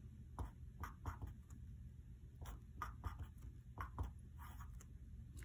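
Fine-tipped pen writing on paper: a run of short scratchy strokes and light taps as letters and bonds are drawn.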